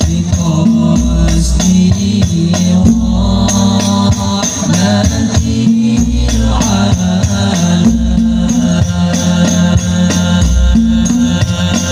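An Al-Banjari ensemble of terbang frame drums playing a fast, dense rhythm over deep bass-drum strokes, with voices chanting along.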